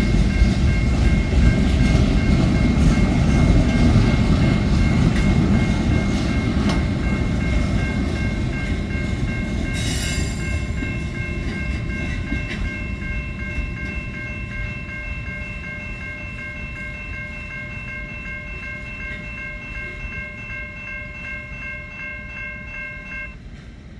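Freight train rolling past, a heavy rumble of wheels on rail that slowly fades as the train moves away. Over it sounds a steady high-pitched ringing that cuts off suddenly near the end.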